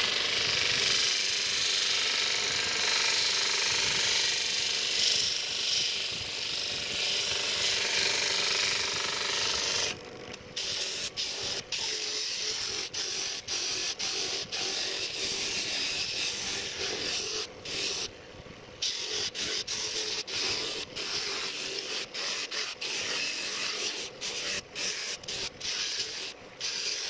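Disc sander grinding the wood and filler off the edge of a Sardius table tennis blade, trimming the excess down to the blade's standard shape. A loud, steady grinding hiss over the motor's hum lasts about ten seconds, then turns quieter and is broken up by many brief gaps.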